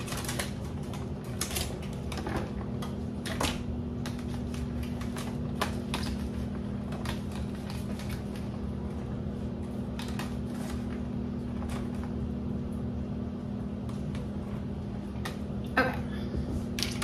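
Light clicks and taps of clear plastic clamshell berry containers being opened and handled, with blueberries tipped into a plastic container, over a steady low hum.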